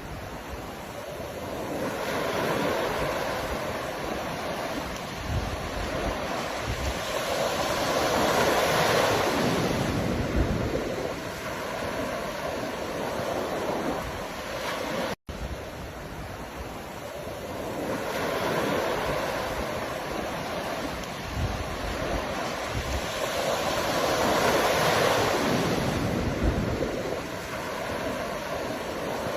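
Ocean surf: waves breaking and washing in, swelling to a loud crest about every sixteen seconds. The sound cuts out for an instant about halfway through, where the recording loops.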